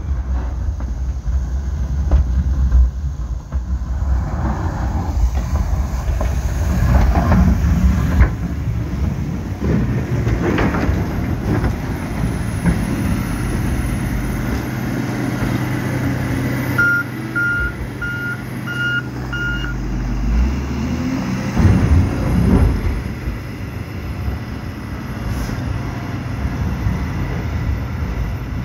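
Case 721G wheel loader's diesel engine running steadily while clearing snow, with a few louder surges of rumbling. About two-thirds of the way through its reversing alarm beeps five times.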